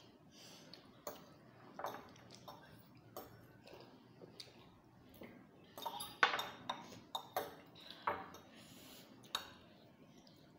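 A fork and a spoon clinking and scraping against glass bowls of noodles: scattered sharp clicks, with a quick run of them about six seconds in.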